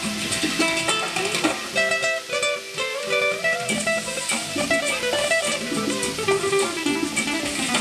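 Music led by a plucked guitar, a quick run of picked notes.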